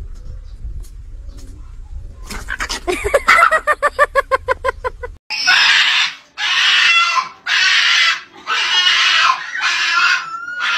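A dog gives a rapid run of short pitched pulses, about eight a second, for some three seconds while two dogs tussle. Then a small black-and-white dog held up in a man's arms screams in loud, harsh squeals, five bursts of about a second each. It is protesting at being left behind when its owner goes out.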